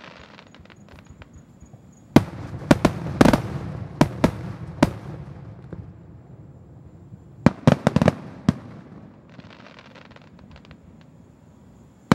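Aerial fireworks shells bursting overhead. A quick run of sharp bangs starts about two seconds in, and a second cluster comes a few seconds later, with quieter gaps between.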